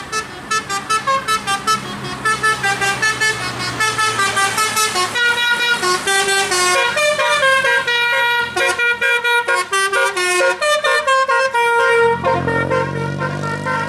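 Multi-tone musical 'telolet' vehicle horn playing a melody of quick short notes, moving on to longer held notes. About twelve seconds in, the low hum of a passing car's engine comes in under it.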